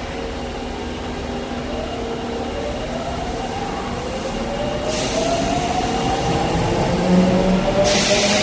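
Tanimachi Line 22 series subway train pulling away, its motors whining in tones that rise steadily as it gathers speed. A spell of hiss comes in about five seconds in and again near the end.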